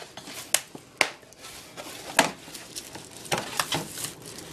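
Cardboard shipping box being handled, its flaps pushed and folded back, with light rustling and about half a dozen irregular sharp taps and scrapes of cardboard.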